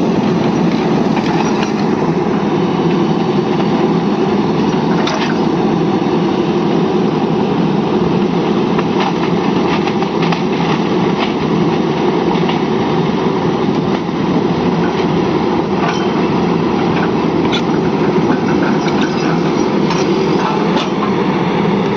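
Excavator's diesel engine running steadily, with scattered short metallic clanks and clicks.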